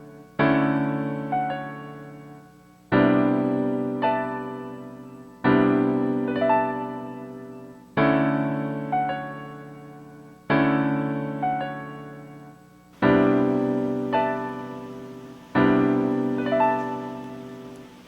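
Slow piano music: a chord struck about every two and a half seconds and left to ring and fade, each followed about a second later by a single higher note.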